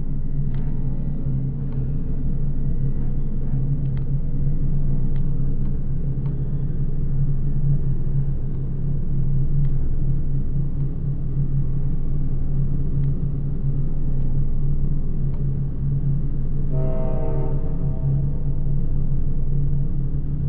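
A steady, loud low rumbling drone from a film soundtrack, with a few faint scattered clicks in the first half and a brief horn-like pitched tone lasting about a second near the end.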